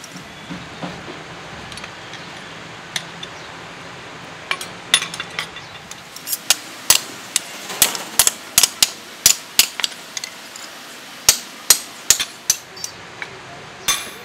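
Hand hammer striking a leaf-spring steel cleaver blank on a small block anvil. A few light taps come first, then from about four seconds in a run of sharp metal-on-metal blows, roughly two to three a second, with a short pause about ten seconds in.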